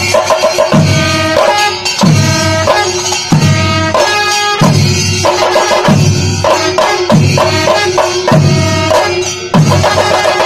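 A Kerala temple percussion ensemble of chenda drums beats a steady, repeating rhythm, with sustained pitched tones running above the drumming.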